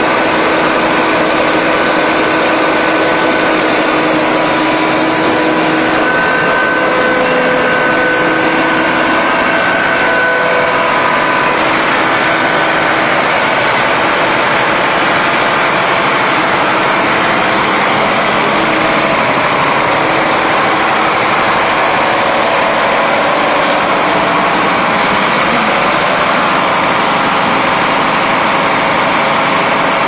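Concrete mixer truck's engine running steadily, with a few faint steady whining tones over it that fade out a little before halfway.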